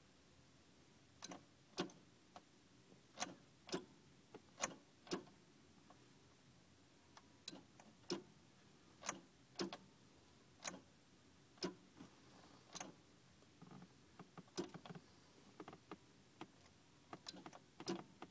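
Starter solenoid clicking over and over, roughly once a second and sometimes twice in quick succession, with no cranking: the car won't start, and the owner suspects the starter.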